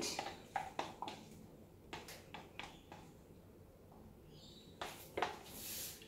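Faint clicks and light knocks of plastic paint cups being handled, set down and picked up, followed by a brief rustle just before the end.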